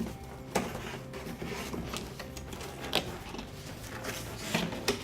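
Cardboard being handled and folded, with tabs creased along their scores, rustling and giving a few sharp cracks and taps: one about half a second in, one about three seconds in, and a couple near the end.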